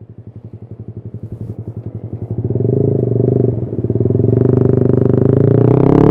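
Yamaha R15 V3's 155 cc single-cylinder engine idling through a custom aftermarket exhaust with an even pulsing beat. It grows louder over the first two and a half seconds, then runs loud and steady.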